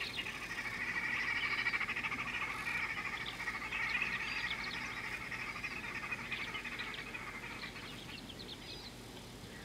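A dense chorus of frogs calling, a mass of rapid trilling calls that swells a second or so in and slowly fades, with short high bird chirps over it.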